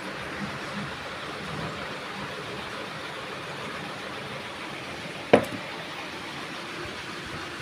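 Steady background noise, with one sharp knock about five seconds in as a small metal block is set down on a hard tabletop.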